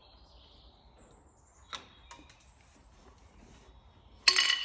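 A couple of light metallic clicks, then about four seconds in a sharp metal-on-metal clink that rings on briefly: a small steel tool or part striking metal during work with a screwdriver on a locking screw.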